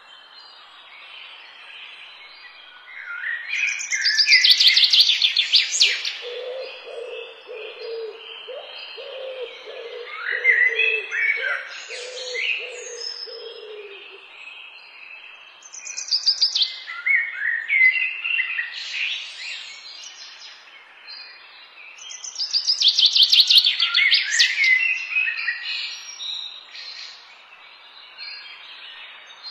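Songbirds singing and chirping in four loud phrases of quick, high notes, each a few seconds long. A low call repeats steadily under them for several seconds in the middle.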